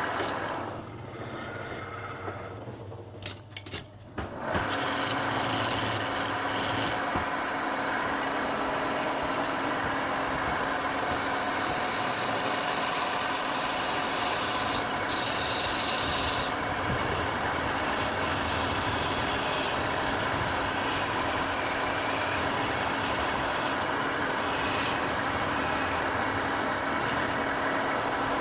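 Wood lathe turning a long piece of wood while a hand-held turning tool scrapes and cuts it, with the lathe's hum underneath. The cutting is lighter and uneven for the first four seconds or so, then goes on steady and loud.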